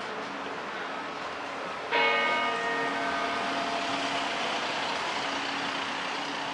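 A church bell strikes once about two seconds in, its tone ringing on and slowly fading, over the steady noise of city street traffic.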